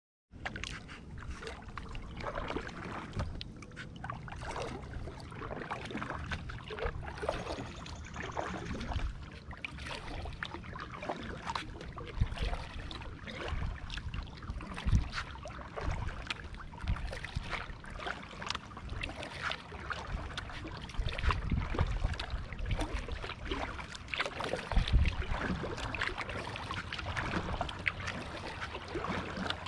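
Kayak paddling on calm river water: repeated paddle dips, splashes and drips. A few louder low thumps come through, the loudest near the end.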